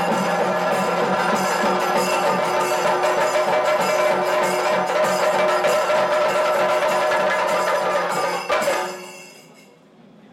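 Music with percussion and sustained tones, steady and loud, fading out about nine seconds in.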